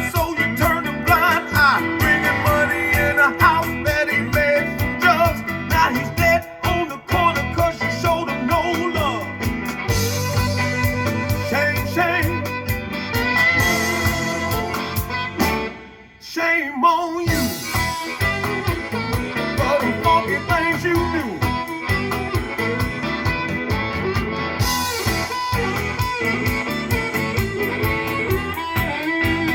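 Electric blues music with a band, electric guitar to the fore, its bent lead notes prominent in the first few seconds. The music drops out briefly about 16 seconds in, then comes back in.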